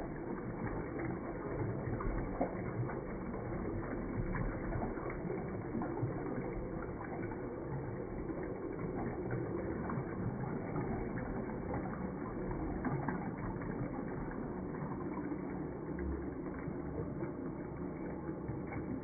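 Toilet refilling after a flush: water runs steadily into the bowl and swirls down the drain, a continuous rushing that fades slightly near the end.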